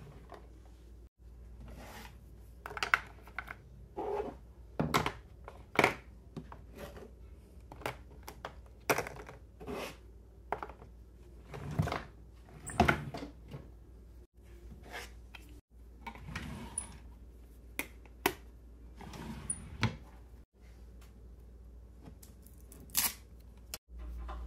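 Plastic and metal makeup cases, a powder box, a foundation stick, a compact and a palette, clacking and knocking as they are picked up off a hard vanity top and set down into a drawer of makeup. The knocks come at irregular moments, each short and sharp, the loudest about 6, 13 and 23 seconds in.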